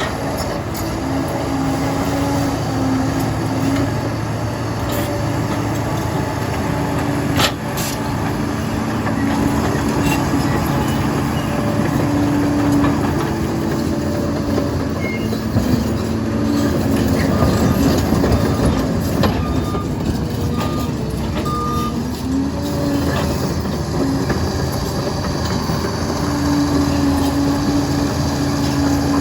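Liebherr PR 746 crawler dozer's diesel engine running under load, its pitch shifting up and down as it works, over heavy track and machinery noise. There is a sharp clank about seven seconds in and a few short high squeaks around twenty seconds in.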